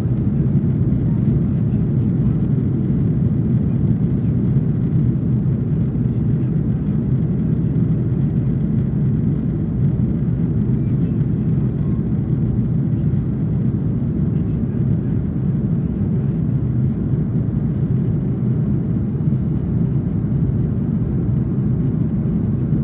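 Airbus A330-300 cabin noise in flight, heard from a window seat over the wing: a steady, deep drone of engine and airflow noise that holds even throughout.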